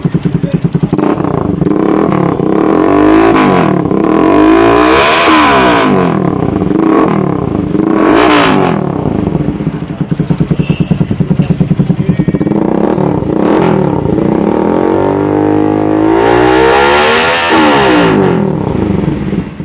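Bajaj Rouser 200NS single-cylinder engine breathing through an aftermarket loud-pipe muffler. It idles with a fast pulsing beat and is revved up and let fall back several times, with a longer rev near the end.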